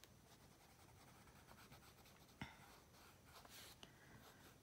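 Faint scratching of a colored pencil shading on paper, with a light click about two and a half seconds in.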